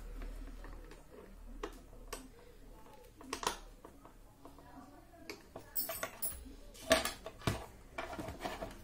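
Scattered clicks and light knocks of action-camera mount parts being handled and fitted onto a helmet. The sharpest knock comes about seven seconds in.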